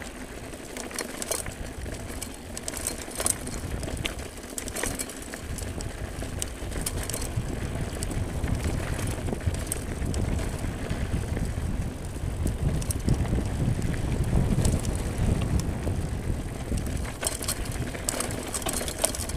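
Mountain bike ridden fast down a rough dirt trail: a steady low rumble of wind on the handlebar-mounted microphone and tyres on dirt, with scattered sharp rattles and clacks as the bike hits bumps. The rumble grows louder through the middle of the stretch, as the bike picks up speed.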